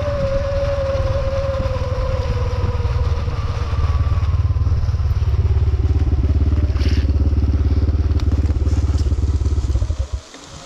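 Vehicle engine slowing with a falling whine, then settling into a steady low, even chug from about four seconds in, and cutting out abruptly near the end as it is switched off.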